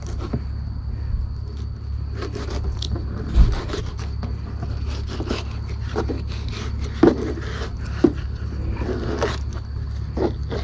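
Knife working on sheepshead fish: irregular scraping strokes and a few sharper knocks over a steady low hum.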